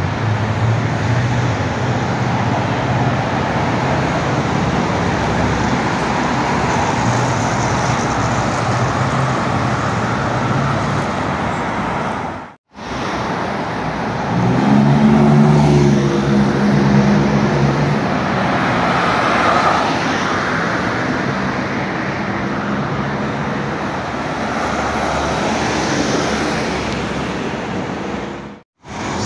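Road traffic on a busy city avenue: a steady wash of cars running past with a low engine hum. A louder engine passes about halfway through. The sound cuts out abruptly twice for a moment.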